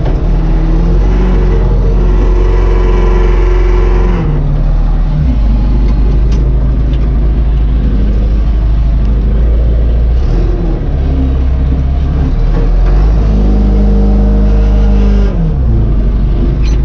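Old dump truck engine pulling a load of topsoil, its pitch climbing as it accelerates and dropping suddenly at gear changes, about four seconds in and again near the end.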